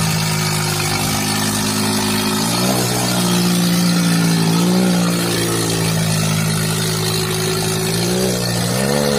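Diesel tractor engines running hard at high revs under a heavy pulling load. The engine note holds steady and swells briefly in pitch about four times.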